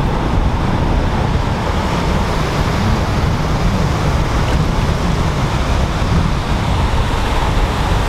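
Wind blowing across the microphone over the wash of surf, a steady, unbroken noise.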